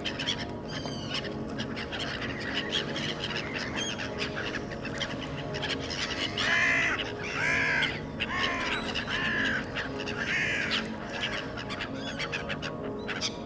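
Harsh bird calls: a run of about six loud, arched calls roughly half a second to a second apart about halfway through, with fainter calls before it, over a steady low hum.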